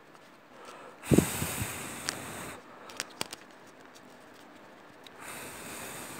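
Two breaths blown onto a hot, softened vinyl record to cool it: the first, louder one about a second in, the second near the end. A few light clicks come in between.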